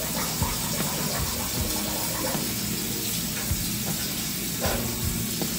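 Bathroom sink faucet running steadily into the basin, with a few small knocks.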